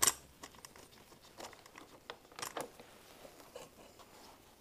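Scattered clicks, taps and rustles of a plastic side panel and small fittings being handled and pressed into place on a Honda CRF250L, with a sharp click right at the start and a cluster of clicks about two and a half seconds in.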